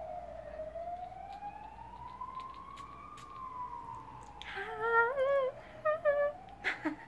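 An emergency-vehicle siren wails slowly: it falls, rises over about three seconds, then falls again. About four and a half seconds in, a woman hums a short wavering tune for under two seconds, the loudest sound, followed by a few sharp clicks.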